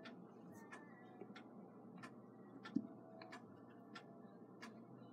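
Faint, regular ticking of a mechanical clock, about three ticks every two seconds, with one soft knock a little past halfway.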